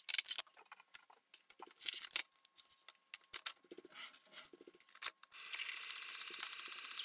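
Clicks and knocks of cups and parts being handled while coffee is made. About five seconds in, a small electric coffee appliance starts up with a steady buzzing run.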